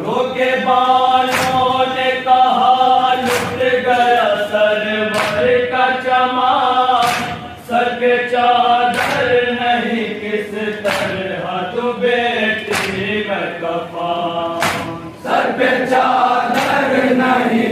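Men's voices chanting an Urdu noha (mourning lament) together in long sung lines, with sharp chest-beating slaps of matam roughly every two seconds, often in pairs, keeping the beat.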